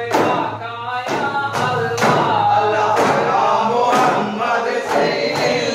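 Men singing together in chorus over steady strokes of hand-held daff frame drums, about two beats a second, as in a duff muttu performance.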